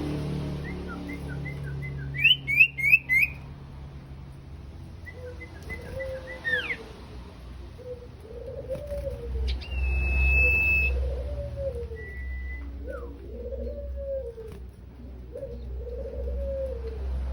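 Sirtu bird calling: sharp high chirps and quick upward-flicking whistles in the first few seconds, and a single held whistle about ten seconds in. Under these, from about five seconds on, low rounded cooing notes repeat roughly once a second, over a steady low hum.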